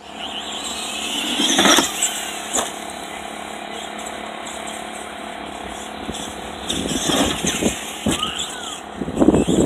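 Radio-controlled monster truck driving across grass: a steady mechanical whir with louder rattling surges about two seconds in and again over the last few seconds as it speeds up.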